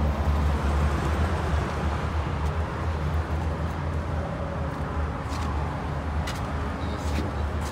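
A vehicle engine idling steadily: an even low hum that eases slightly in level over the seconds, with a few faint ticks on top.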